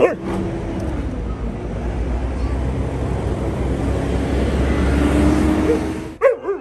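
A loud steady rushing noise that swells and then drops away about six seconds in. Over it, Alaskan malamutes give short high yips and whines, once at the very start and a few times near the end.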